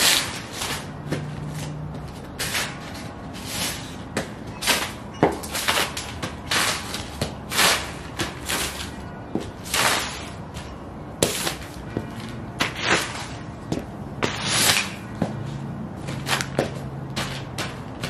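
Ugg sheepskin boots stomping on loose glossy magazine pages over concrete: a string of uneven paper crunches and crinkles, roughly one to two a second.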